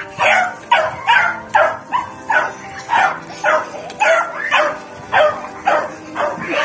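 Beagle puppy barking over and over in short excited yips while chasing, about two barks a second at a steady pace.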